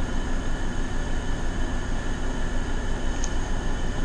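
Steady rushing noise with a low hum from two air conditioners running, with one faint click about three seconds in.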